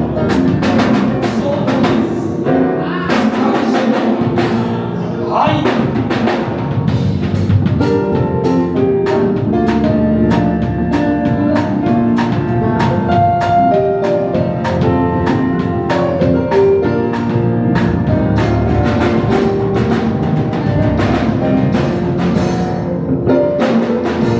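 Gospel worship music: a drum kit keeping a steady beat under a band, with voices singing.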